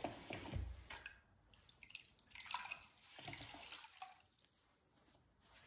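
Faint water dripping and splashing in irregular drops, with a few small knocks.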